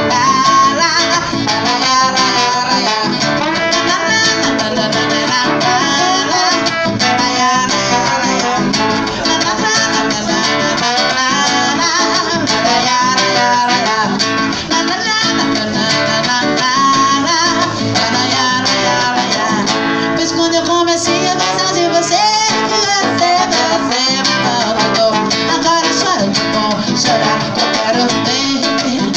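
Trombone playing a melody line over a strummed acoustic guitar.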